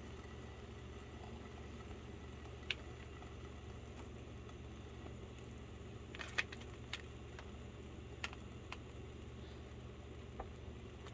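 Faint frying in a pan of bread and cheese, with several scattered sharp little pops and crackles, over a steady low hum.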